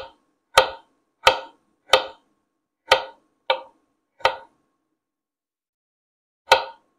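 Kitchen knife slicing small carrots into thin rounds, each cut ending in a sharp knock on a wooden cutting board. Seven chops at an uneven pace, with a pause of about two seconds before the last.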